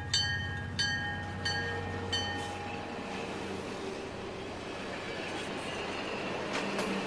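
A Broadway Limited T1 model steam locomotive's onboard sound system ringing its bell about every two-thirds of a second, the strokes fading out after about two seconds, over a steady rumble and hiss. A brief swish comes near the end.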